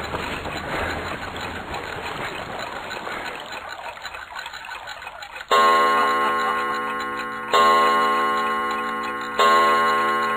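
A noisy rustle fades away over the first few seconds. Then a clock chime strikes three times, about two seconds apart, each strike ringing out and dying away.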